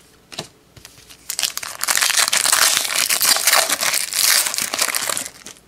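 A 2018 Donruss football retail card pack's wrapper being torn open and crinkled by hand, a dense crackling rustle that starts about a second in and stops shortly before the end.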